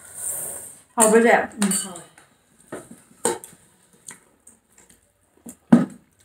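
Several sharp, separate clinks and taps against a ceramic dinner plate as food is picked up from it, the loudest near the end.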